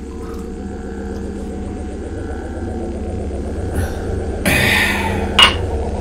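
A low, steady drone that slowly grows louder. Near the end, a brief rushing noise, then a single sharp glass clink with a short ring as a crystal glass knocks against the counter or bottle.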